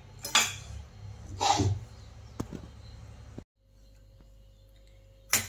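Brief scraping and rustling noises of kitchen utensils being handled, with a light click, then a sudden cut to quiet room hum and a single sharp click near the end.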